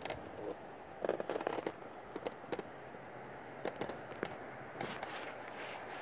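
Blustery night air with light rain: a steady rushing hiss with scattered sharp ticks and crackles, a cluster of them about a second in.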